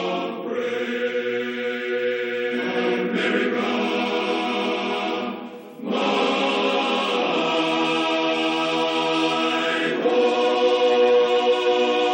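Choir singing a slow rendition of the national anthem in long held chords that change every few seconds, with a brief break between phrases about six seconds in.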